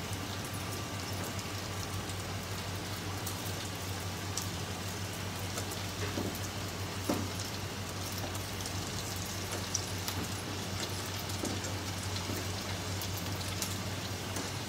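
Sabudana and potato vadas deep-frying in hot oil in a kadai: a steady, rain-like sizzle with scattered crackles and pops as the fritters brown toward golden and crisp.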